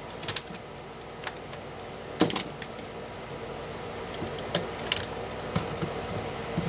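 Light clicks and knocks of hard plastic and metal power-tool parts being handled, with one louder knock about two seconds in, over a steady low hum.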